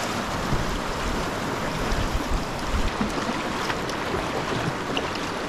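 Steady rush of a shallow river rapid around a whitewater kayak, with the small splashes of paddle strokes in the water.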